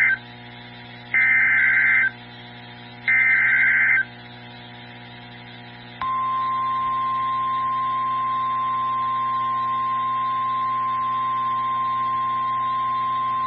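NOAA Weather Radio alert signal: the end of one SAME data header burst and two more, each about a second of warbling two-pitch data tones. After a short pause comes the steady 1050 Hz warning alarm tone, starting about six seconds in. Together they signal that a new warning is about to be broadcast.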